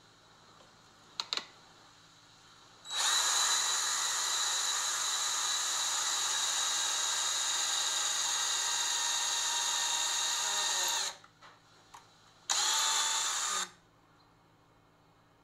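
Craftsman cordless drill boring a hole with a twist bit through a pine board, running steadily for about eight seconds, then a second, shorter run of about a second.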